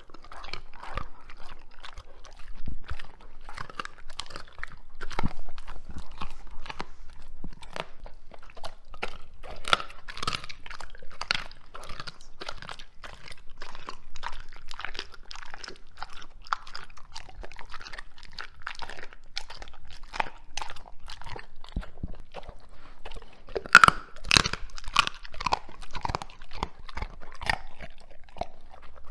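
Doberman chewing and crunching raw chicken drumsticks, a steady irregular run of wet chews and crunches, with a louder burst of crunches late on.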